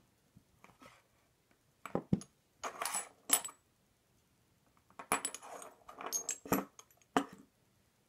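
Small metal lock parts (springs and pins of an ASSA Twin 6000 cylinder) clinking and rattling as they are handled, in two bouts of tinny clicks with brief metallic ringing.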